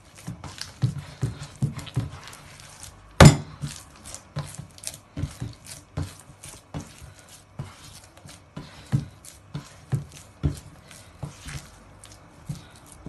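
Hands kneading and gathering a soft, slightly slack bran-flour bread dough in a glazed earthenware bowl: squelching pushes and soft thumps, about two a second. About three seconds in there is one much louder, sharp knock against the bowl.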